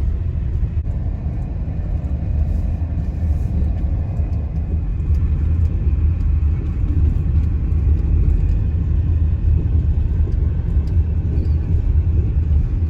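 Steady low rumble of a vehicle on the move along a road: engine, tyre and wind noise, growing a little louder partway through.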